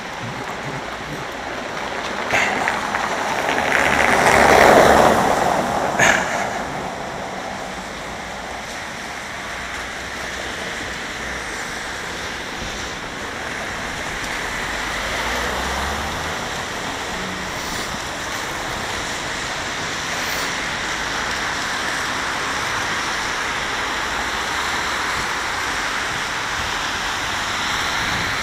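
Traffic on a wet street: a steady hiss of tyres on wet road, with one vehicle swishing past, loudest about four to five seconds in. Two sharp clicks fall near that pass.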